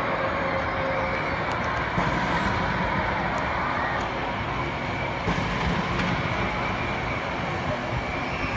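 Steady outdoor urban background rumble with a faint held tone above it, and a few faint pops scattered through.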